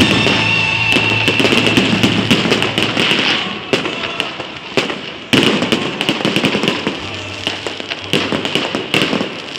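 Aerial fireworks display: dense crackling from bursting shells, then a run of sharp bangs from exploding shells, the loudest about five seconds in.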